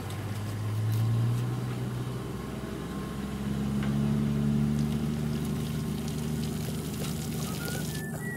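Pickup truck engine running steadily at low speed while towing a water-tanker trailer. Its pitch rises slightly about a second in.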